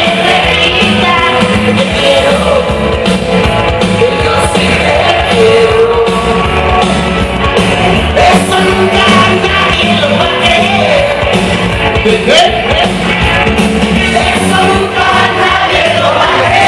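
Loud dance music played over a sonidero sound system, with singing and some shouting voices over a steady beat.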